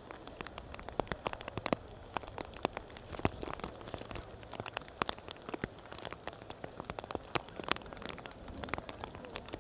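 Rain, with large drops striking a surface close to the microphone as many irregular sharp ticks over a steady hiss.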